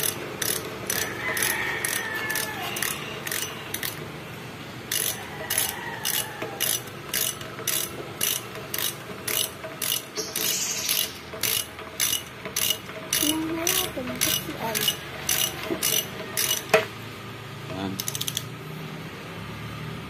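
Hand socket ratchet wrench clicking steadily, about two clicks a second, as bolts are run in on a truck gearshift servo. There is a short pause about four seconds in, and a single sharp metal knock near the end that is the loudest sound.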